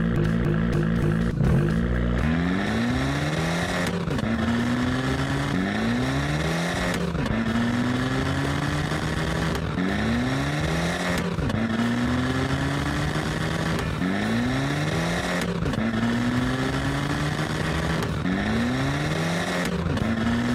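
Race-car engine sound effect, revving up and dropping back over and over, about every second and a half, like an engine climbing through its gears.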